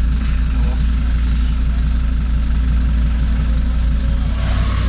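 Fiat Marea HLX 2.4's five-cylinder engine idling steadily with no muffler, a loud, even low rumble from the open exhaust.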